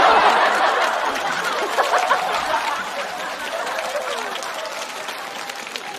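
Studio audience laughing with some clapping, loudest at the start and slowly dying away.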